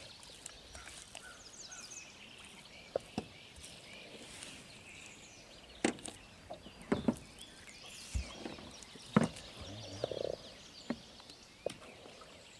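Quiet outdoor ambience: small creatures chirping high and continuously, with scattered short knocks and clicks from about six seconds in.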